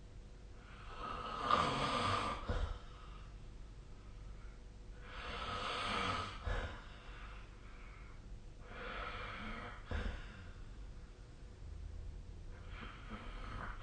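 A sleeping person snoring: four raspy breaths about four seconds apart, the first one the loudest.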